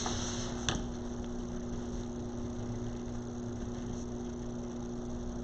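Steady low electrical hum with background hiss, and one light click about two-thirds of a second in.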